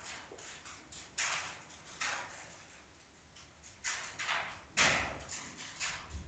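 Pen writing on paper: a run of irregular short scratching strokes as working is written out, with the strongest strokes a little over a second in, near two seconds, and around four to five seconds in.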